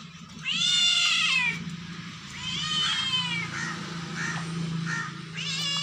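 Cat meowing: three drawn-out meows, each rising then falling in pitch, with a few short fainter calls between them; the first meow is the loudest.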